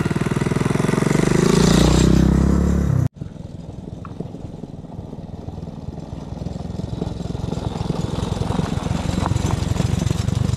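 ATV engine running loud, its pitch sliding down about three seconds in before the sound breaks off abruptly. It comes back quieter and grows slowly louder.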